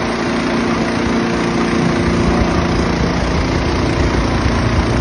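Mud-Skipper 15 hp surface-drive mud motor's 420cc single-cylinder four-stroke engine running steadily at speed, pushing the jon boat along.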